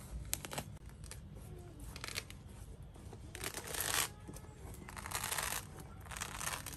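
Thick fruit rind and white pith being torn and peeled apart by hand, in a few rustling, tearing bursts, the loudest about halfway through.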